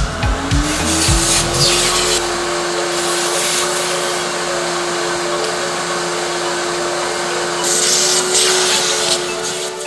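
A vacuum cleaner motor spins up to a steady whine and keeps running under a loud rush of air, which swells and fades a few times as it works.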